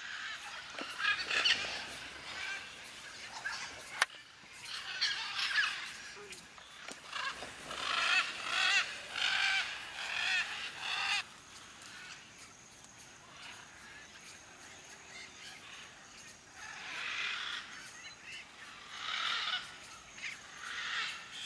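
Macaws calling in flight: loud, harsh, raspy squawks in repeated bursts, thinning out for a few seconds midway before another round near the end. A single sharp click about four seconds in.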